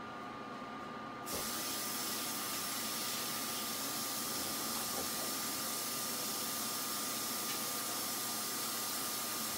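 A steady, even hiss that starts suddenly about a second in and cuts off abruptly at the end.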